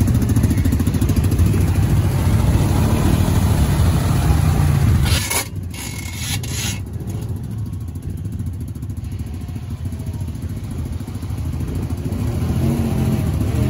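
An ATV engine running hard and loud in the mud. About five seconds in the sound drops sharply after a few brief knocks, and a quieter vehicle engine rumbles at idle, growing louder near the end.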